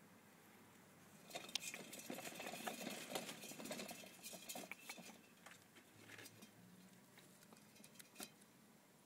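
Degu nibbling and crunching a fresh vine leaf: a run of quick, crisp clicks and crackles, dense at first and thinning to scattered clicks after the middle.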